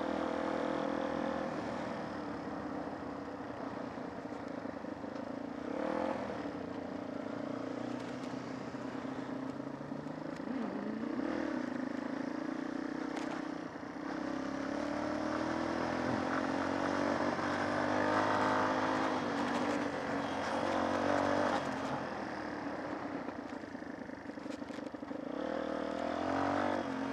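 Small off-road motorcycle engine running under way, its revs rising and falling, with a few knocks and rattles along the way.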